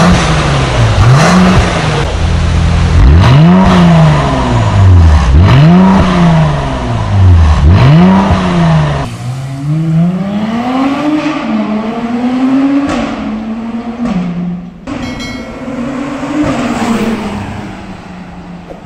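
Mercedes-AMG C43's 3.0-litre V6 through a Fi-Exhaust aftermarket exhaust, revved four times with the exhaust valves closed, each rev rising and falling. About nine seconds in it accelerates hard through the gears, the pitch climbing and dropping at each upshift, then fades as the car pulls away near the end.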